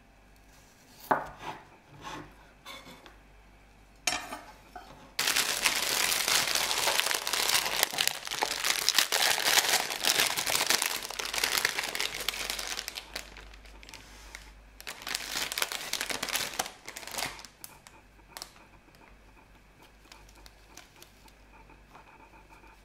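A chef's knife slicing garlic cloves on a wooden cutting board, a few crisp strikes in the first three seconds. Then a clear plastic bag of fresh thyme crinkles loudly as it is opened and handled, for about eight seconds and again briefly later, before quieter handling of the herbs.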